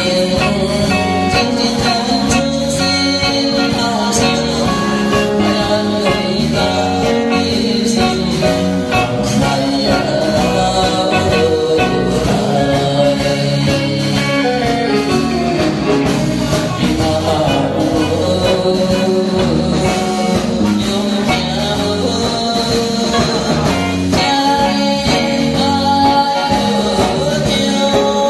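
A man singing a Taiwanese Hokkien song into a microphone over band accompaniment with drums and keyboard.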